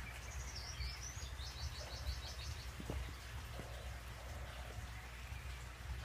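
A small bird chirping: a few quick high glides, then a fast run of about eight short repeated notes that stops about halfway through. Underneath is a steady low rumble, with a couple of faint taps later on.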